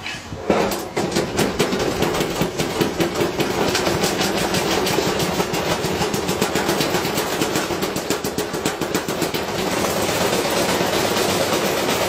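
Washing machine drum spinning up with a heavy, unbalanced load, banging and clattering in rapid knocks that start suddenly and quicken into a continuous rattle.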